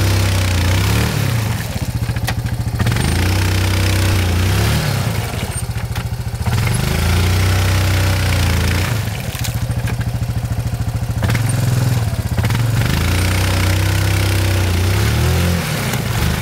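ATV engine revving up and down over and over as the quad churns through a deep mud hole, its wheels working in the mud.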